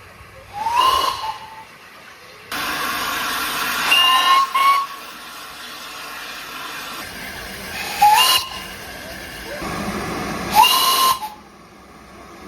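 Steam locomotive whistle giving several short blasts, each sliding up in pitch to a steady note as it opens, over a loud hiss of escaping steam. The hiss starts suddenly about two and a half seconds in and eases off near the end.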